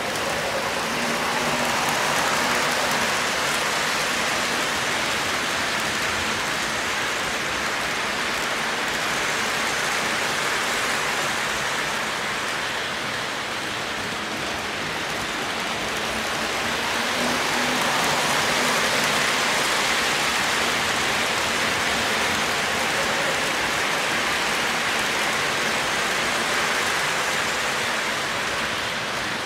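Several three-rail O gauge model trains rolling around a curve of metal track: a steady rolling rumble and hiss of wheels on the rails with a faint motor hum, swelling as the trains pass close.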